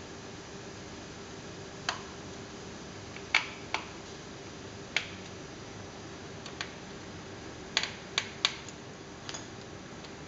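Scattered sharp plastic-and-metal clicks and taps as hands and a small screwdriver work a solid-state drive into a laptop's drive bay, about ten clicks in all with a quick cluster in the second half, over a steady faint hum.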